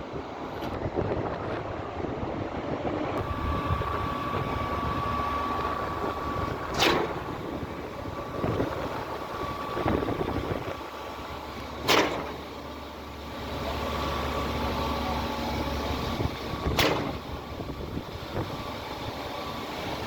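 Concrete pump running steadily, with a sharp loud clunk about every five seconds, three in all, as the pump changes stroke.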